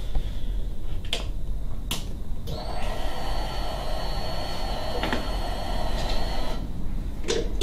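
Two clicks, then an electric fuel pump whines steadily for about four seconds and cuts off suddenly. This is the pump priming the fuel system with the ignition switched on, before the engine is cranked.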